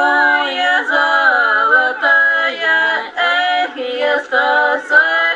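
Unaccompanied singing of a Russian folk song, in long held notes that slide from one pitch to the next.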